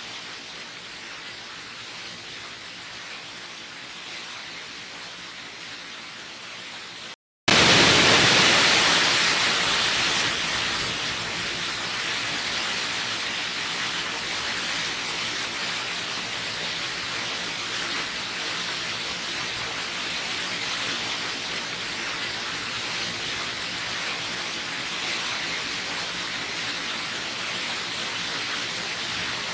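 Waterfall: steady rushing of falling water. It cuts out for a moment about seven seconds in, then returns louder and eases down to a steady level over the next few seconds.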